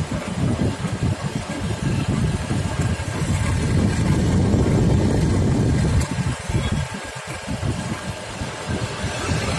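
Wind buffeting the microphone over the running engine of a moving vehicle: an uneven low rumble, loudest in the middle.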